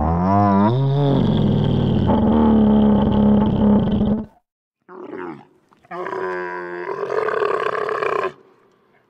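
Camel calling: three loud calls with short silent gaps between them. The first lasts about four seconds, its pitch wavering up and down at the start; a short call follows, then one of about two and a half seconds.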